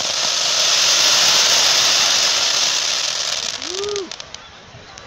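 Firework fountains spraying sparks up from the water, giving a loud, steady hiss that fades out after about three and a half seconds.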